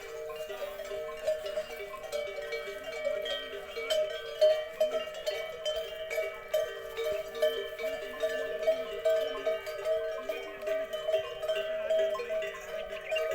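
Many neck bells on herd animals ringing and clanking together without a break as the animals move along, with a busy jangle of small strikes.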